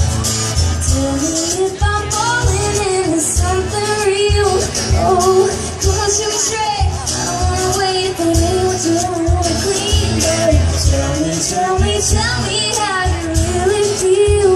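Live band music played loud through a concert sound system: a wavering melodic lead line over a steady bass drum beat.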